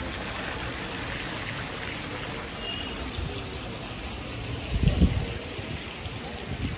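Steady rush of running water, with a loud low rumbling thump about five seconds in.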